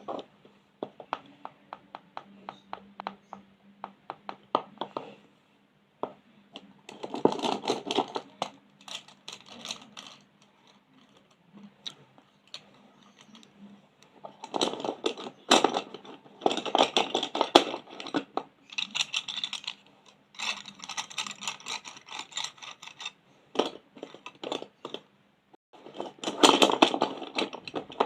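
Colouring strokes scratching on paper in repeated bursts of quick back-and-forth shading, with light clicks and taps in the first few seconds.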